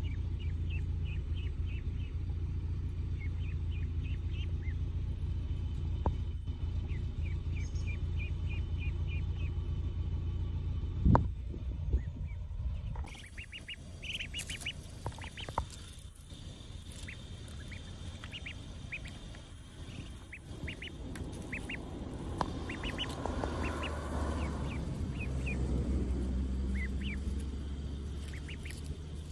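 Ducklings peeping in quick runs of short, high calls, over a low steady rumble in the first half, with one sharp thump about eleven seconds in.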